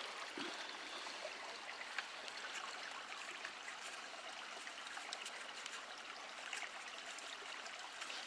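Steady, faint rushing background noise like running water or wind in trees, with a few small clicks and a sharper tap about two seconds in.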